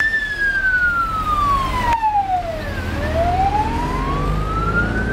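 Ambulance siren in a slow wail, its pitch falling over about three seconds and then rising again, over the low rumble of a vehicle engine.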